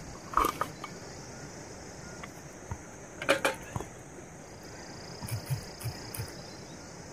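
Light knocks and clinks of a cooking-oil bottle and a frying pan being handled at a camp gas stove, with two short clatters about half a second and three seconds in and a few soft taps near the end, over a steady high hiss.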